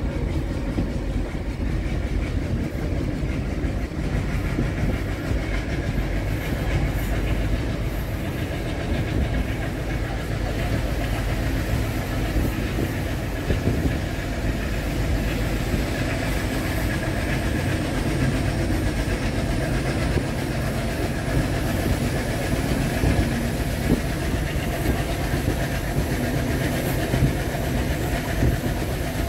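Twin ALCo WDG-3A diesel locomotives chugging under power, heard from a coach just behind them, with the coach's wheels clicking over the rail joints. A faint high whine slowly rises over the second half.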